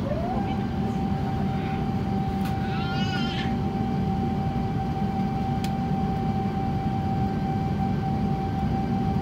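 Airbus A350-900 cabin noise: a steady low rumble with a mechanical whine that rises in pitch within the first half second and then holds one steady note. A short, high, wavering squeal sounds about three seconds in.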